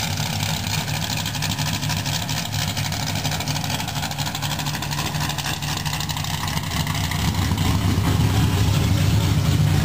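The 1966 Chevelle race car's engine idling with a steady, choppy beat, louder near the end.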